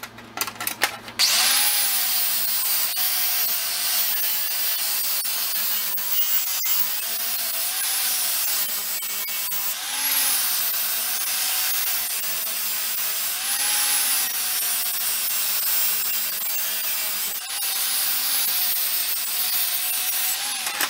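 Angle grinder with a flap disc running and grinding a steel flat bar, starting about a second in after a few handling clicks. Its steady whine wavers up and down every few seconds.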